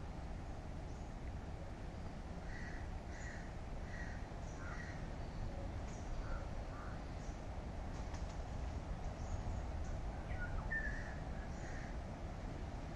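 Birds calling in the trees: runs of short repeated calls, about two to five seconds in and again around ten to eleven seconds, with fainter higher chirps between, over a steady low outdoor rumble.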